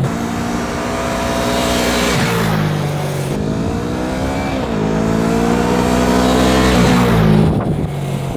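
Yamaha YZF-R3's parallel-twin engine running loud through its exhaust, its pitch climbing and dropping again and again. It quietens near the end.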